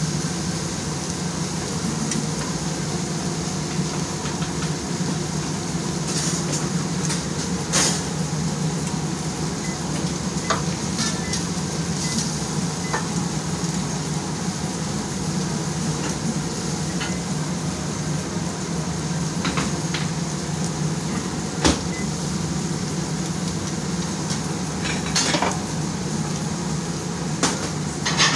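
Steady sizzling of food frying, with occasional sharp clinks of cookware and utensils.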